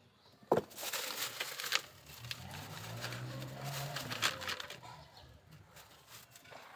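A sharp knock, then about four seconds of irregular rustling and crackling, with a low hum underneath in the middle, fading out near the end.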